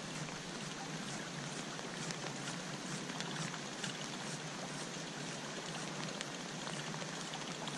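Steady rain falling on a pond: an even hiss with a faint patter of scattered drops.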